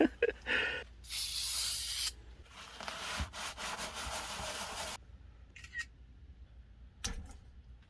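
Scrubbing and rubbing while the inside of an HVAC air handler is cleaned: a hissy stretch about a second in, then rougher scrubbing with rapid strokes until about five seconds in, and a few light clicks near the end.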